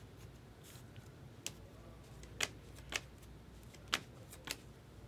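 Stack of Topps Stadium Club trading cards flipped through by hand: a handful of sharp card flicks and snaps, roughly one every half second to a second, as cards are moved through the stack.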